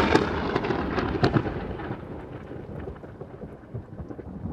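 Logo-reveal sound effect: a thunder-like crash full of electric crackles and rain-like hiss, fading away gradually.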